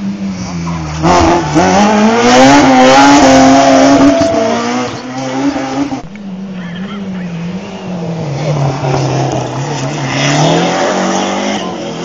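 Rally car engine revving hard, its pitch climbing and falling through the gears. It breaks off suddenly about halfway, and a second rise in engine pitch follows near the end.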